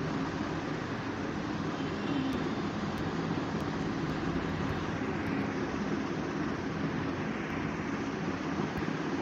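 Steady rushing background noise with a faint low hum, even in level throughout.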